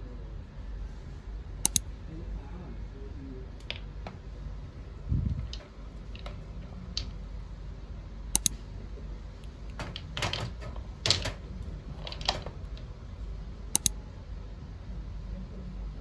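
Irregular small clicks and knocks of plastic gel-polish bottles being picked up, tapped together and set down in a wire drawer rack, including a few sharp double clicks.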